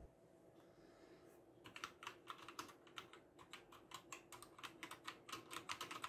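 Typing on a Ziyoulang K3 full-size mechanical keyboard with red switches: a fast, uneven run of key clicks that starts about a second and a half in, after a quiet opening.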